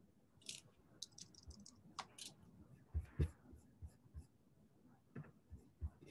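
Faint, scattered clicks, taps and rustles picked up over a video-call microphone, with two low thumps about three seconds in the loudest.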